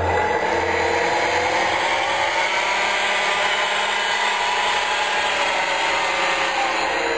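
Electric brushless motor and geared drivetrain of a model RC tractor running, a whirring whine that dips and rises in pitch as the speed changes.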